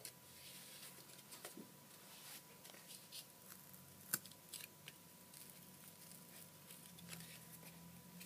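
Faint scattered clicks and rustles of cardboard being handled as a cardboard wheel is worked onto a pencil axle, with one sharper click about four seconds in. A faint steady high tone sits underneath.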